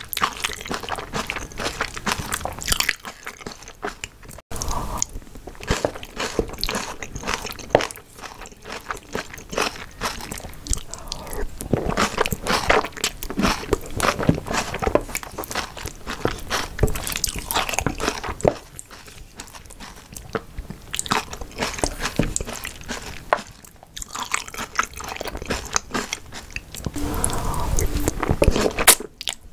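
Close-miked eating of jajangmyeon's black bean sauce with chunks of onion and meat: wet, sticky chewing and mouth smacking with crunchy bites, in a continuous stream with a few short pauses.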